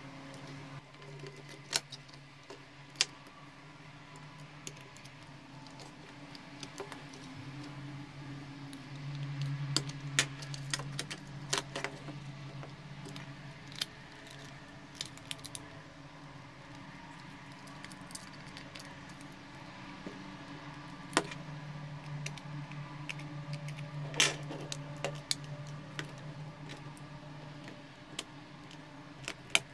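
Scattered sharp clicks, taps and light rattles of a Nikon Speedlight flashgun's plastic housing and metal tweezers being handled as the flash is fitted back together, over a steady low hum.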